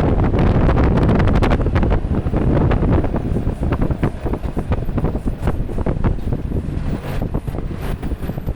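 Long-nose truck's engine running loud, with a hard low rumble and wind buffeting the microphone. It is loudest in the first two seconds and eases slightly after.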